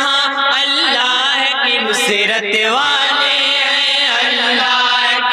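A chorus of men chanting a naat together in unison, led by one voice at a microphone, with long held notes that waver and slide in pitch.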